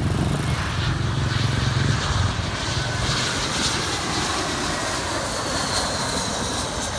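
Airbus A320-family twin-jet airliner on final approach, gear down, passing low overhead with its engines at approach power. A deep rumble in the first couple of seconds gives way to a rushing hiss, with a faint high whine near the end.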